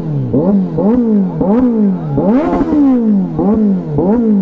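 Kawasaki Z900 inline-four with a de-catted full-system Arrow exhaust, revved in quick throttle blips, about two a second, the pitch jumping up and falling back each time. Very loud.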